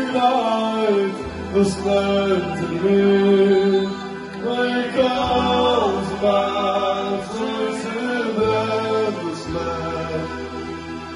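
A song playing: a singer's voice carries a gliding melody over instrumental backing with long held bass notes.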